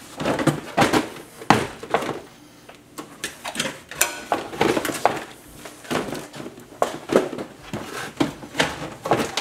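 Hard plastic trunk tray and trim pieces of a Toyota Prius Plug-in being lifted, shifted and fitted: a string of sharp knocks and clunks of plastic against plastic, with scraping between them. The loudest clunk comes about a second and a half in.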